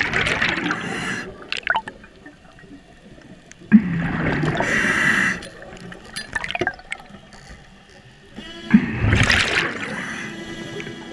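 Underwater scuba breathing: a diver's exhaled bubbles gurgle out of the regulator in bursts of a second or two, about every four and a half seconds, with quieter inhalations between.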